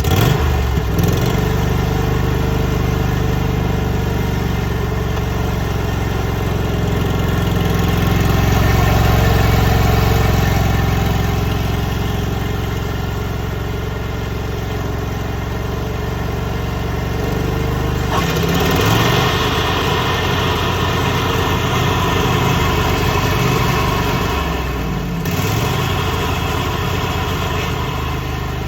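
Husqvarna riding lawn mower engine running steadily, its pitch shifting briefly about two-thirds of the way through and again near the end as the engine speed changes.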